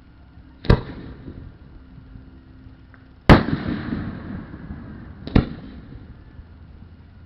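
Firework shells bursting: three loud bangs about two seconds apart, the middle one the loudest, each followed by a fading tail of rumble.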